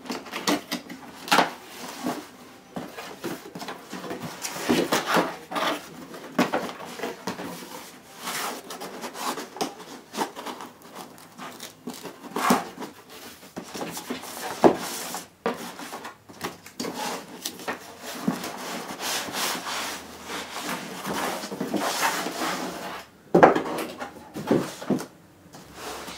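A cardboard box being opened and its packing handled: a run of rubbing, scraping and rustling with many sharp knocks and taps.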